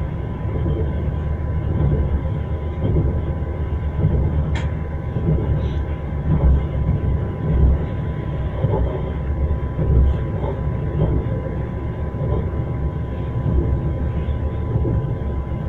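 Train wheels clacking over the rails with a steady rumble, louder knocks coming every second or two, and one sharp click about four and a half seconds in.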